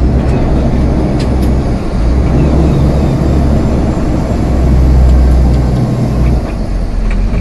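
Semi-truck diesel engine running under load, heard from inside the cab, while the driver downshifts the 18-speed manual transmission. The engine note grows louder about five seconds in, then eases off.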